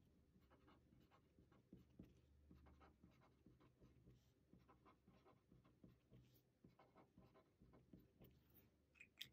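Faint scratching of a pen on squared paper as a word is written out again and again in many short strokes.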